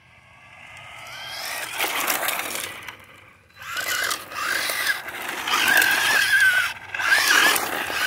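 Battery-powered remote-control car with a 1970 Dodge Charger body, driving past. Its electric motor whine wavers up and down with the throttle over the rush of small tyres on pavement. It comes close about two seconds in, fades, then passes loud again from about four seconds on.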